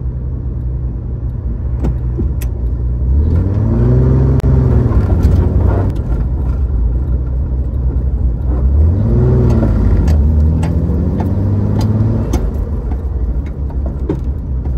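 1965 Chevrolet Corvair's air-cooled flat-six engine heard from inside the car, pulling up in revs about three seconds in and easing off, then rising and falling again about nine seconds in and once more, more gently, near twelve seconds, over steady road noise.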